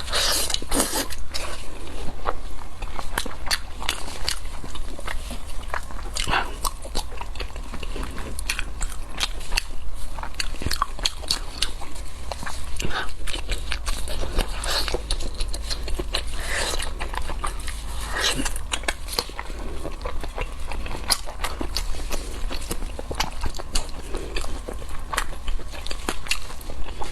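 Close-miked biting and chewing of spicy braised sheep's head: many short crunches and clicks at irregular intervals, over a steady low hum.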